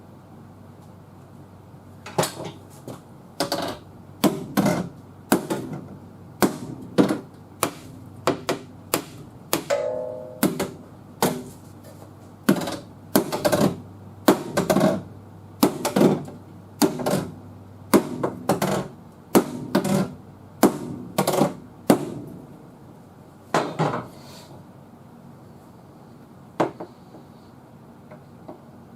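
Hammer blows on the steel of a car's quarter panel as it is worked straight: a long run of sharp, ringing metal strikes, about one to two a second. They stop a few seconds before the end, with one last strike after a pause.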